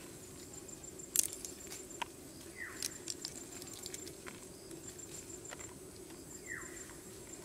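Fresh green pea pods being split open by hand: scattered small snaps and clicks, the sharpest about a second in.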